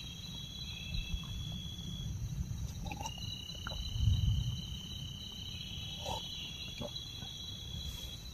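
Night insects keeping up a steady high-pitched trilling that changes pitch slightly a few times, over a low rumble, with a few faint soft knocks and rustles.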